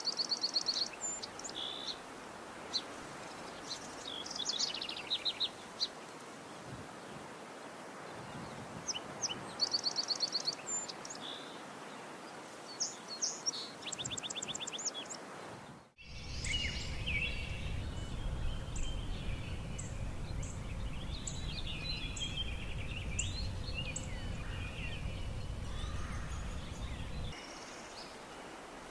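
Songs of a reinita coronada, a New World warbler: short, fast, high trills and single chips repeated every few seconds. About halfway through, a cut brings in a second recording with busier chirps and chip notes over a low rumble that stops near the end.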